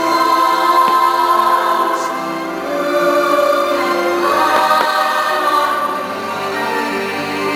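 Fireworks show soundtrack: a choir singing sustained, held notes over music, with a few faint firework pops beneath it.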